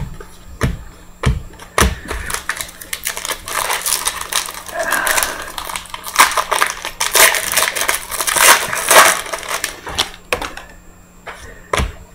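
Foil wrapper of a football trading card pack being torn open and crinkled by hand, a dense crackling that builds and is loudest a little past the middle. A few sharp taps of cards being handled come near the start and again near the end.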